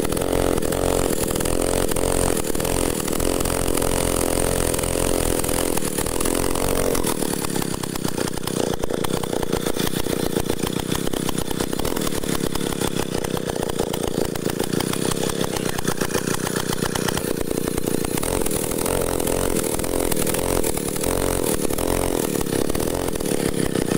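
Small engine of a homemade log winch running steadily under load as it winds in the hauling cable. Its note changes about seven seconds in.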